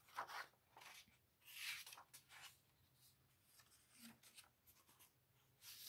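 Faint paper rustles as a picture book's page is turned by hand and smoothed flat, the clearest rustle about a second and a half in.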